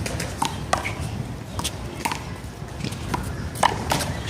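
One-wall handball rally: the small rubber ball being struck by hand and rebounding off the wall and court. A string of sharp smacks at uneven intervals, each with a brief ring.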